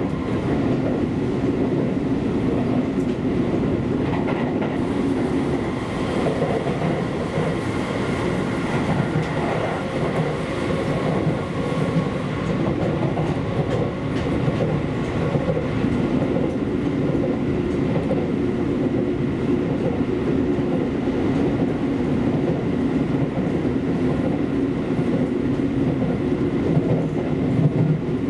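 Seibu Railway electric commuter train running steadily, heard from inside the car: a continuous rumble of wheels on rail with clatter over the rail joints and a faint steady high whine.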